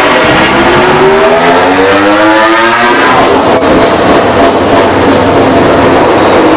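MotoGP race bike engines: one accelerates with a rising pitch over the first three seconds, then after an abrupt cut about three and a half seconds in, a race bike engine runs steadily in the pit lane.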